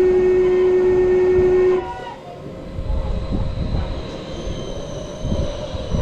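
A ride's start horn sounds one steady, loud note for about two seconds, then the ride car rumbles and rattles as it moves off along its track.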